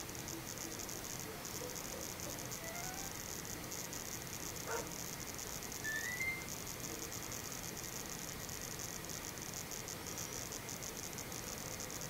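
Steady hiss of VHS tape playback with a faint hum underneath. A couple of faint, short rising chirps come about five and six seconds in.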